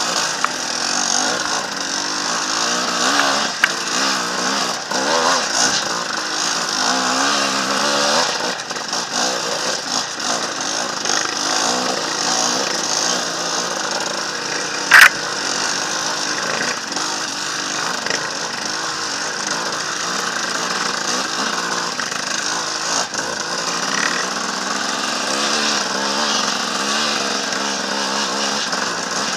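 Off-road motorcycle engine revving up and down at low speed on a rocky trail climb, with a sharp knock about halfway through.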